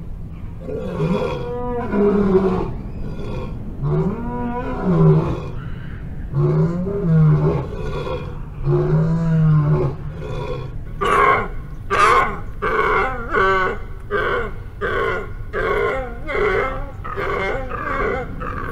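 Lioness roaring: a slow series of low moaning calls that rise and fall in pitch, about one every two and a half seconds. About eleven seconds in they give way to a quicker run of shorter, harsher calls, about one a second.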